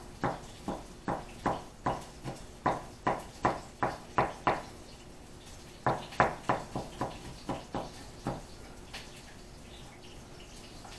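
A quick series of sharp knocks, about two to three a second, in two runs of a few seconds each with a short pause between, and a couple of fainter knocks near the end.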